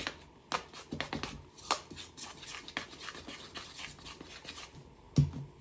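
A hand mixing a sticky sourdough preferment of flour, water and starter in a plastic bowl: irregular wet squelches and fingers scraping the bowl, with a louder thump about five seconds in.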